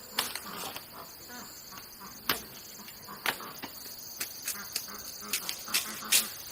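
Steady high-pitched insect chirring, with irregular sharp clicks and taps over it, a few louder than the rest.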